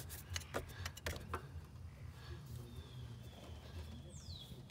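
Pliers clicking and tapping against metal hose clamps and fittings as they twist a coolant hose on the throttle body to break its seal: a few sharp clicks in the first second and a half, then only faint handling.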